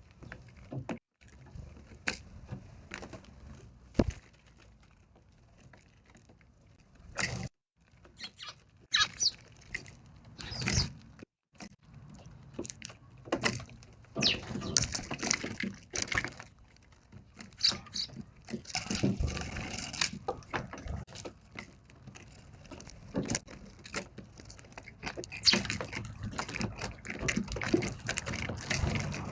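Eurasian tree sparrows chirping in short, scattered calls, mixed with irregular clicks and knocks. A busier background noise builds from about halfway through.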